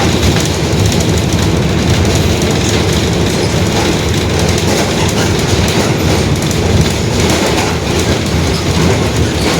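Cabin ride noise of a Mercedes-Benz OF-1721 BlueTec 5 city bus under way: diesel engine and driveline running steadily, with a dense rattle from the body and the differential droning, which the uploader identifies as the bus's fault.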